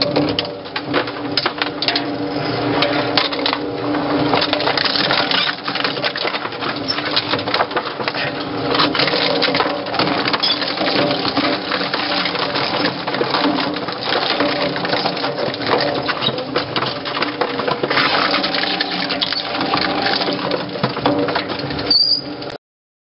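Industrial twin-shaft shredder running, its interlocking cutter discs crunching and tearing hard drives into metal fragments: dense cracking and clattering over a steady motor and gear hum. Cuts off suddenly near the end.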